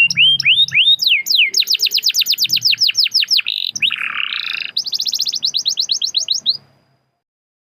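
Domestic canary singing: fast trills of repeated sweeping notes at about ten a second, a harsh buzzy phrase about four seconds in, then another rapid trill that stops abruptly near the end.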